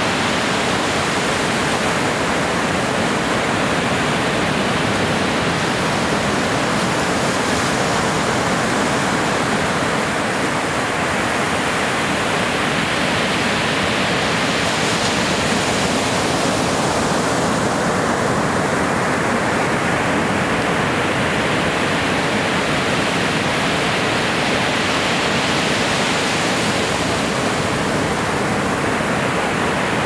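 Ocean surf breaking and washing up a sandy beach: a steady, unbroken rush of water noise.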